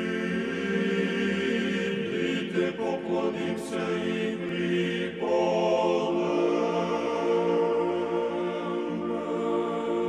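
Choral chant in long, held chords as theme music, moving to a new, higher chord about five seconds in, with a brief bright shimmer a little before that.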